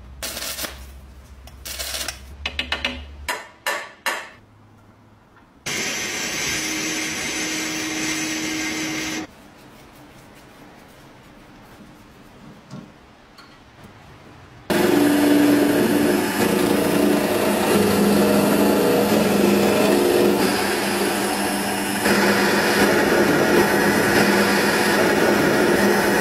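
Clicks and knocks of metal parts being handled, a few seconds of steady noise, then a metal lathe starts about halfway through and runs steadily as its cutting tool turns down a small metal part. The lathe is the loudest sound.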